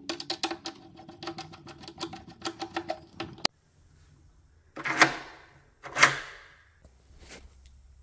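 A screwdriver driving a screw into an electronic deadbolt's interior housing, with rapid clicking for about three and a half seconds that cuts off suddenly. Then the deadbolt's thumb turn is worked by hand, giving two sharp clunks about a second apart as the bolt is thrown and pulled back.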